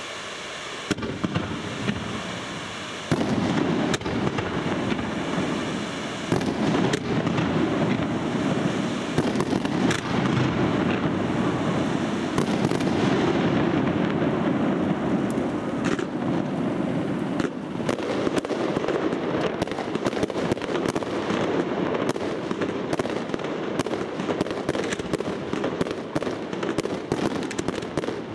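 Fireworks display: a dense, continuous barrage of bursting shells, with a steady rumble under many sharp bangs and crackles. It grows louder about a second in and much louder about three seconds in.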